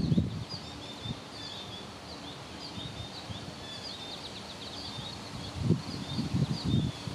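Small birds chirping in short, high, repeated notes, with gusts of low wind rumble on the microphone at the start and again near the end.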